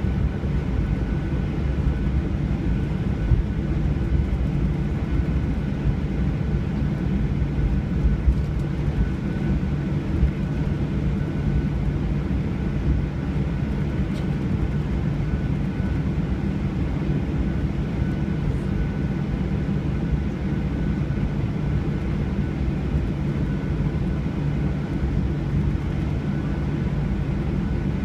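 Airliner cabin noise: a steady low rumble of the jet engines and airflow with a faint steady whine, heard from inside the cabin.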